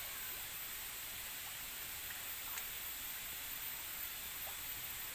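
Steady outdoor background hiss, with a few faint clicks.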